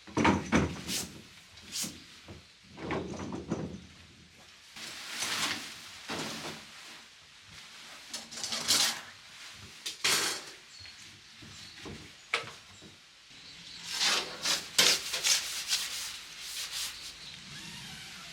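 Objects being handled: irregular rubbing, rustling and scraping with a few sharp knocks, in separate bursts.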